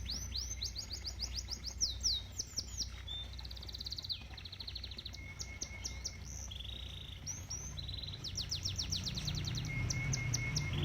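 Domestic canary singing: a song of fast trills of repeated high notes, each trill lasting a second or two before switching to a different one, with a short pause around the middle, over a low steady background rush of pond water.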